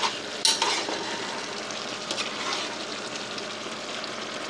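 Ground beef sizzling as it browns in a pot, with a spoon stirring and scraping through the meat about half a second in.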